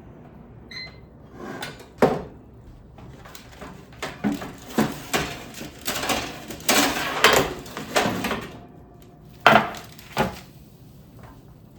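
Cookware and dishes being handled: a pan and plates knocked, slid and set down in a string of clatters and knocks, with the sharpest knocks about two seconds in and again near the end.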